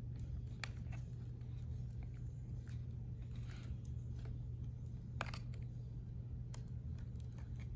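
Scattered small clicks and taps of hands working inside a laptop while the battery power cable is reconnected, with one sharper click about five seconds in, over a steady low hum.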